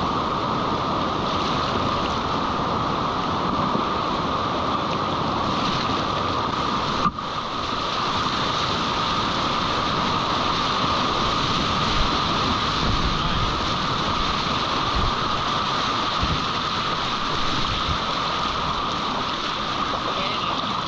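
Steady rush of whitewater on a rocky creek, an even hiss of moving water, broken by a brief cut about seven seconds in.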